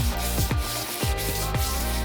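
Sandpaper rubbing back and forth in steady hand-sanding strokes, under electronic background music with a regular kick-drum beat.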